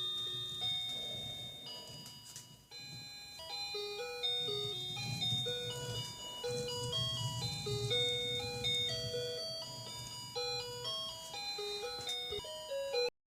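A simple, tinkling melody of clear single notes, like a music-box or ice-cream-van jingle, playing as background music.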